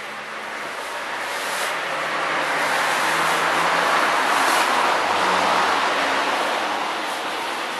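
A car driving past on the street, its tyre and engine noise swelling to a peak about four seconds in and then fading away.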